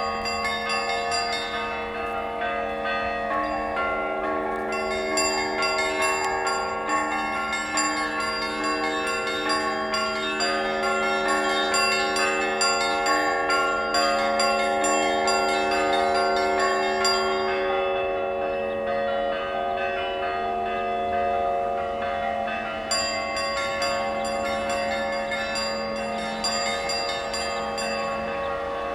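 Church bells ringing on and on, with repeated strikes overlapping into a sustained wash of ringing tones. The strikes stop for about five seconds a little after halfway, leaving the bells humming, then resume.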